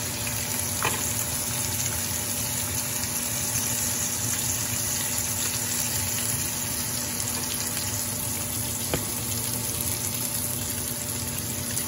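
Mangrove snapper fillets sizzling steadily in hot oil in a nonstick frying pan, with a faint steady hum underneath.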